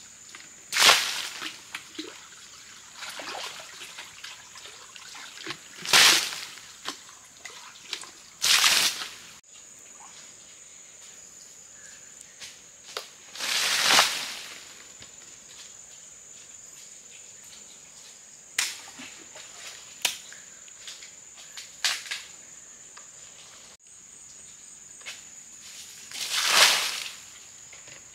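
Water splashing and sloshing in short bursts at irregular intervals, over a steady high insect drone.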